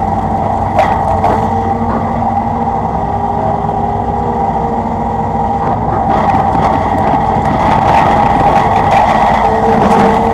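Hitachi excavator's diesel engine running steadily, with a steady whine over the engine noise and a slight rise in loudness about six seconds in.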